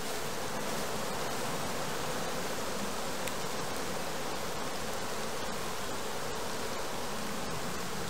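Steady buzzing of a mass of honey bees from an opened hive.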